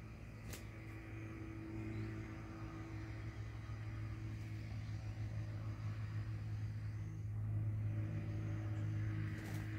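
A steady low engine drone that swells louder over the last few seconds, with a sharp click about half a second in and another near the end.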